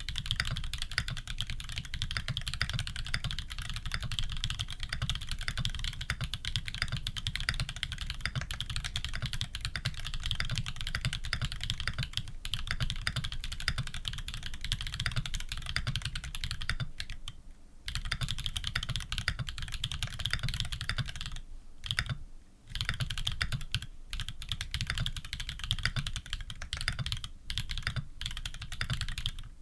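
Fast continuous typing on a custom Leaf65 mechanical keyboard with tactile Holy Panda switches, a brass plate and PBT keycaps: dense key strikes with a deep, full bottom-out, breaking off briefly twice in the second half.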